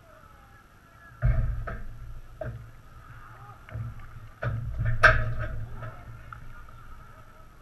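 Knocks and rumbling thumps through the goal frame that carries the camera, in two bouts about a second in and around four to five seconds in, the second the loudest. Faint shouts of players carry from across the pitch.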